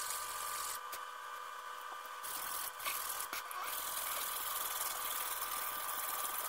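A rag rubbing dark stain onto a wooden flintlock pistol stock, with a few light handling knocks, over a steady background hiss and faint high hum.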